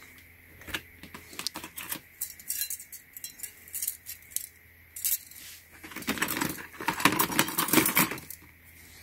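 Stainless steel worm-drive hose clamps clinking and jangling against each other as they are handled and lifted from a plastic storage case, a scatter of short metallic clicks that gets busier in the last few seconds.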